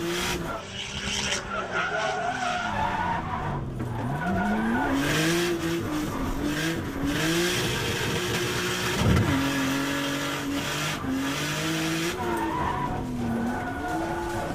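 500-horsepower Nissan Cefiro drift car's engine revving up and down repeatedly as it drifts, with tyres squealing. There is one sharp crack about nine seconds in, the loudest moment.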